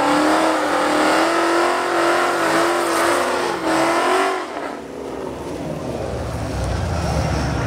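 Ford Mustang doing a burnout: the engine is held at high revs on a steady pitch while the rear tires spin, then the revs cut off abruptly about four and a half seconds in, leaving a lower engine rumble.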